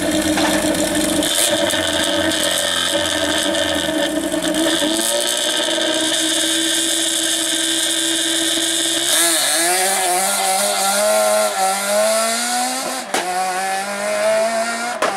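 Renault Clio R3 rally car's four-cylinder engine, first held at a steady note on the start line. From about nine seconds in the car pulls away, the pitch rising again and again through the gear changes.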